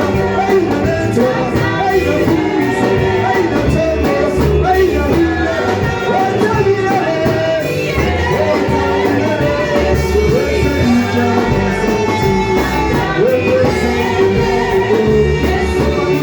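Worship music: voices singing over a band with a steady bass line.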